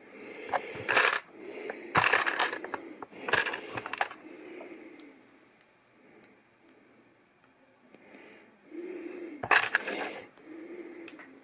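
Plastic LEGO pieces clicking and clattering as they are handled and sorted, in several short bursts with quieter rustling between them.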